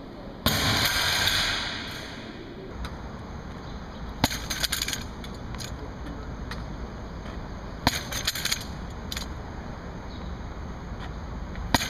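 A second-long rushing noise about half a second in, then sharp clicks, knocks and rattles in several short clusters as a stand-mounted tennis-ball trainer and its balls are handled and loaded by hand.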